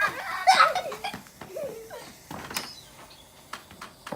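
Short laughs and wordless vocal sounds from people, with scattered sharp clicks and crackles.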